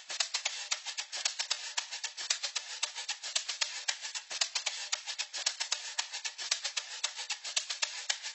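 A programmed shaker loop for an amapiano beat playing back from a step sequencer. It is a fast, even stream of bright, crisp shaker hits, with no other instrument playing.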